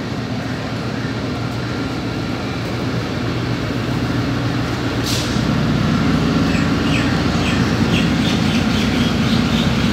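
Caterpillar-engined ZCU-30 diesel locomotive running under power as it pulls a passenger train slowly out of the station. A steady low engine sound grows louder from about halfway through as the locomotive draws nearer, with a short hiss about halfway through.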